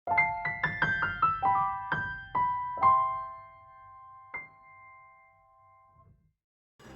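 A short keyboard jingle: a run of quick, bright, ringing notes, then a last single note about four seconds in that rings out and fades away.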